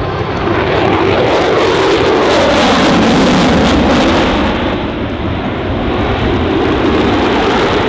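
F-22 Raptor's twin Pratt & Whitney F119 afterburning turbofans running loud as the jet flies past. The noise swells to a peak about three seconds in, with a falling pitch as it goes by, then eases slightly.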